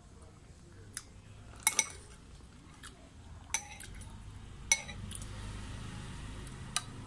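Metal spoon and fork clinking against a ceramic bowl while noodles are scooped and lifted: about six sharp, separate clinks, including a quick pair about two seconds in. A faint low rumble sits under the second half.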